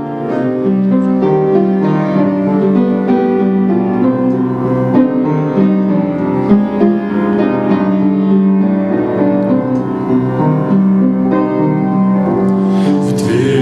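Piano playing a slow, sustained introduction to a hymn; a singing voice starts to come in near the end.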